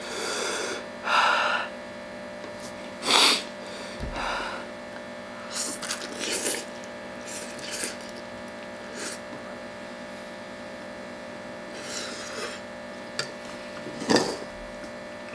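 A man eating very spicy noodles: a few sharp, hissing breaths through the mouth from the burning heat, the loudest about three seconds in, and short slurps and mouth noises as he eats. A steady electrical hum runs underneath.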